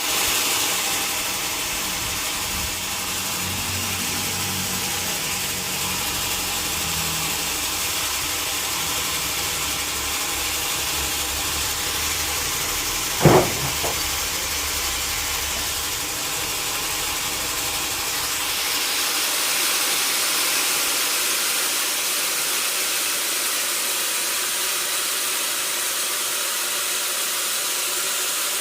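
Sawmill machinery running: a steady hiss with a low engine drone under it, and a single sharp knock about halfway through. The drone drops away in the second half, leaving the hiss.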